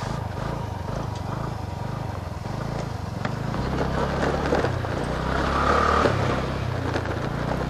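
TVS Ntorq 125 scooter's single-cylinder engine running under throttle while riding over a gravel track, getting gradually louder as it picks up speed.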